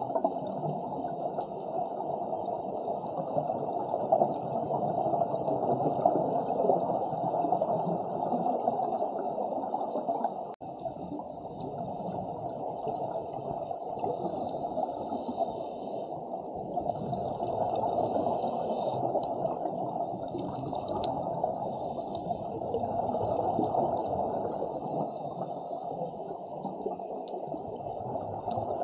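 Underwater sound through a camera's microphone: a steady low rush of water with scuba divers' exhaled regulator bubbles, swelling and fading every few seconds. The sound drops out for an instant about a third of the way in.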